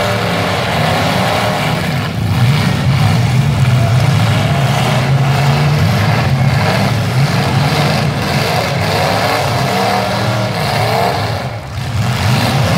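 Several V8 demolition derby cars running at once, their engines revving up and down over a heavy low rumble. The sound dips briefly near the end.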